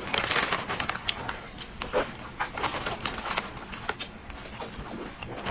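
Close-miked mouth sounds of eating and drinking: irregular wet smacks, clicks and sips.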